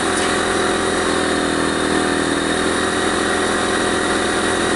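Air compressor running steadily while a trailer tire is filled through the air hose, with an even hiss of air.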